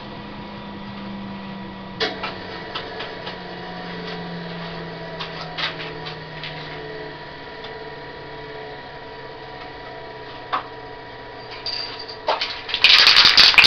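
Wood lathe motor humming, its pitch dropping slowly, with a few sharp knocks of things being handled. Near the end a loud rapid rattling starts.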